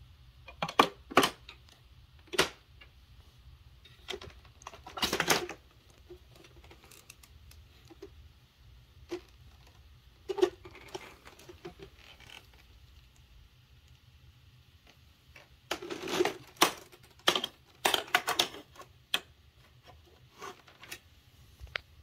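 Hard plastic clicks and knocks of an upright vacuum's extension wand and hose being handled and fitted into their onboard holders, in irregular clusters with pauses between. The vacuum's motor is not running.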